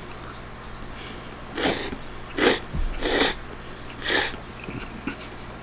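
Four short slurps as spaghetti strands are sucked into the mouth, followed by a few small clicks.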